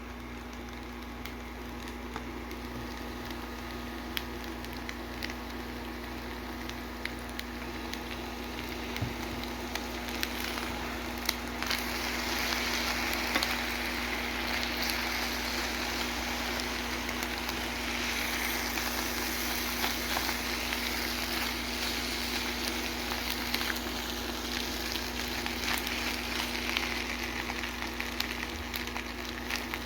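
Food sizzling in a frying pan with scattered crackles and clicks, growing louder about eleven seconds in. A steady low hum runs underneath.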